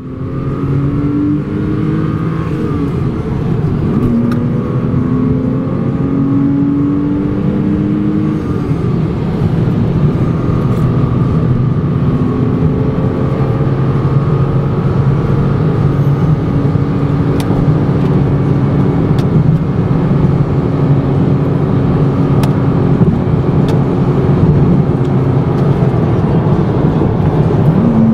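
Porsche Cayman S's mid-mounted flat-six engine heard from inside the cabin, pulling up through the gears of the manual gearbox with a couple of upshifts in the first eight seconds or so. It then cruises steadily at highway speed under constant tyre and road noise.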